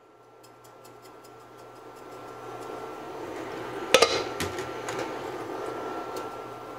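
Oil sizzling in a skillet, the sizzle building up over the first few seconds, over a steady low hum, with light rapid clicks early on while salt and pepper go in. One sharp knock about four seconds in is the loudest sound.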